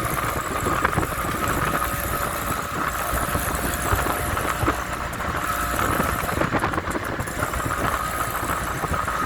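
Motor vehicle engine running steadily, with a faint steady whine over it.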